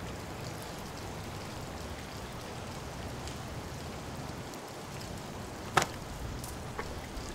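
Steady hiss of light rain falling outdoors, with a single sharp click about six seconds in and a couple of faint ticks after it.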